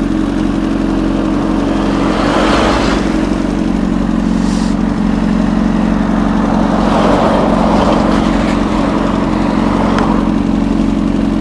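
Honda CBR1000RR inline-four engine idling steadily in traffic. A rushing noise swells up twice, about two and seven seconds in.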